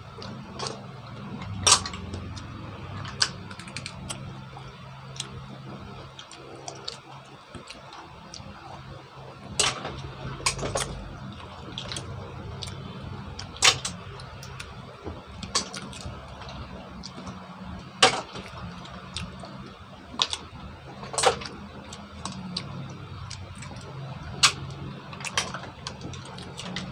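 Cooked green mussel shells clicking and clacking as they are picked from a stainless steel pan and pried open: irregular sharp clicks every second or two, a few much louder, over a steady low hum.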